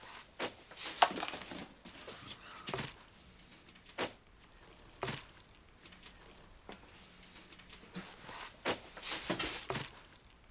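Cardboard boxes being shifted and handled among plastic bags: irregular knocks, scrapes and rustling, with a louder flurry about a second in and another near the end.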